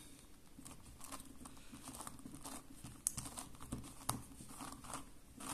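Plastic pieces of a ShengShou Gigaminx puzzle clicking and clacking softly as its faces are turned by hand, with two sharper clacks about three and four seconds in. The turning seems to catch at times.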